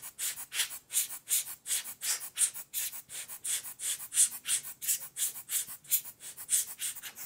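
Hand-squeezed rubber air blower puffing air over a microscope's field lens to clear dust, in a quick run of short hisses about three a second.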